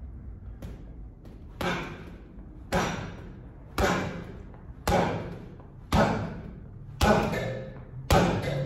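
Boxing gloves landing straight right hands on a heavy punching bag: seven solid thuds starting about a second and a half in, about one a second, each ringing on briefly in the room.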